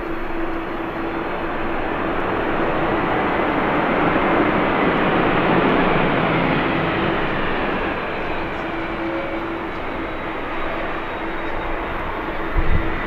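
Jet airliner passing: the engine noise builds to a peak about five seconds in and then fades, with a faint whine falling in pitch as it goes by. A brief low thump near the end.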